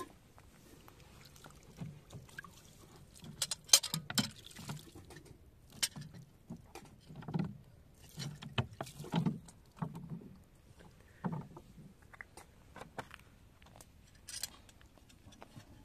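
Metal ladle and knife scraped and scrubbed against gravelly ground while liquid is poured over them from a plastic bottle: irregular gritty scrapes, splashes and light metal clinks, loudest a little under four seconds in.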